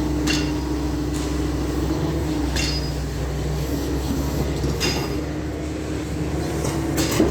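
Doosan DX420 excavator's diesel engine running steadily with a constant whine, broken by a few sharp metallic clinks.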